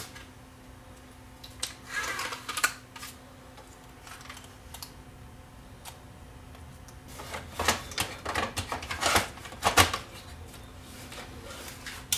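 Clicks, taps and light clatter of a metal-cased CD-R drive unit being handled and seated into the Philips CDR820 recorder's chassis while its flat cable is plugged in. There is a short bout of clicking about two seconds in and a busier run of knocks between about seven and ten seconds.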